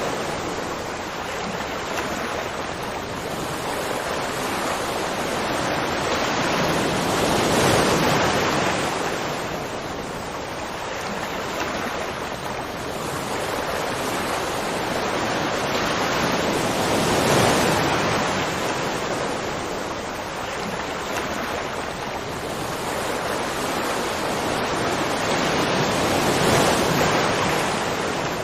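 Continuous rushing water, swelling and easing about every nine seconds.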